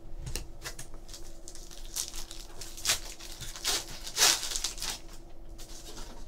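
Foil trading-card pack wrapper crinkling and tearing open, with cards flicking and sliding against each other as they are shuffled by hand. The loudest crinkle comes about four seconds in.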